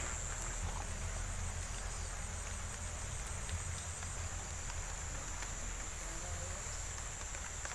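Insects chirring in one unbroken, high-pitched drone, over a low steady rumble.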